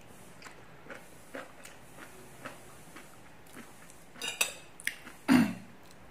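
Chopsticks clicking against a ceramic plate as a load of fried noodles is lifted, then a loud, short slurp as the mouthful goes in, about five seconds in. Faint chewing and small clicks come in between.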